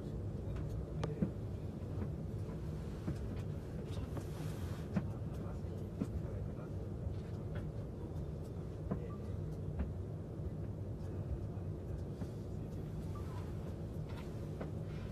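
Steady low rumble and hum inside a moving train's passenger cabin, with scattered faint clicks and taps.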